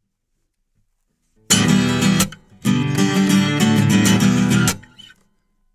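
Acoustic guitar being strummed. A short burst of chords comes about a second and a half in, then after a brief break about two seconds of strumming that stops short: a song intro broken off after a false start.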